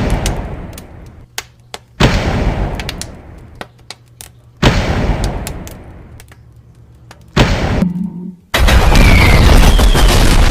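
A series of four heavy booms, each hitting suddenly and dying away over about two seconds, followed near the end by a loud, steady rumble.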